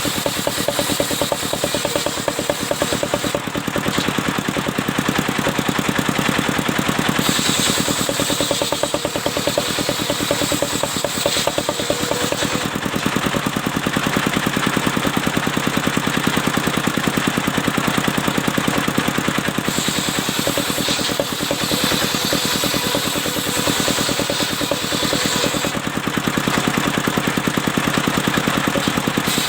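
Engine-driven portable circular sawmill running steadily, its blade cutting albasia wood. Twice the cut brings in a louder, hissing high whine for about five seconds at a time over the steady engine pulse.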